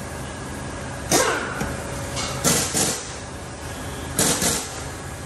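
Three short metallic clattering rattles from new wheel bolts being handled and threaded into an alloy wheel, each a quick cluster of clicks, over a low workshop hum.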